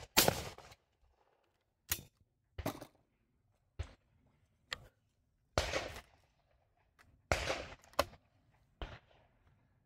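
Shotgun shots: one loud shot with a ringing tail right at the start, then a string of fainter sharp gunshots and clicks about a second apart.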